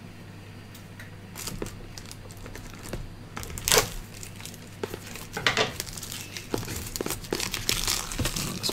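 Plastic shrink-wrap being peeled and torn off a cardboard power supply box: irregular crinkling and crackling that starts about a second in, loudest a little before halfway.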